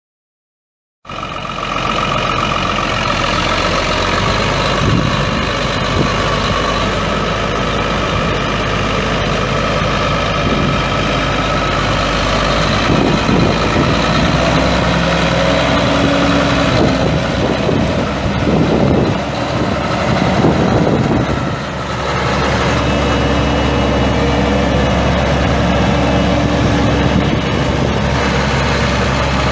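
John Deere 9300T track tractor's six-cylinder turbo diesel running steadily. Its tone shifts and deepens about two-thirds of the way through.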